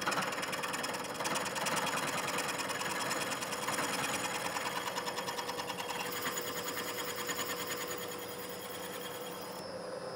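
Milling machine spindle turning a custom-ground fly cutter as it cuts a chamfer into a connecting rod's big-end bore: a steady machining sound with a fast, even rhythmic chatter from the cutter and a steady hum underneath. The high cutting noise drops away shortly before the end.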